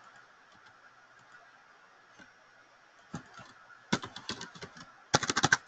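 Computer keyboard typing: faint for the first three seconds, then a few scattered keystrokes, then quick runs of keystrokes from about four seconds in.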